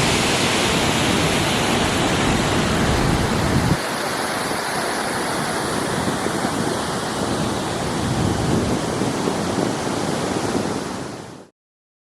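Kirkjufellsfossar waterfall: a steady rush of falling water. About four seconds in, the deep low rumble suddenly drops away and the rush goes on lighter, then fades out quickly near the end.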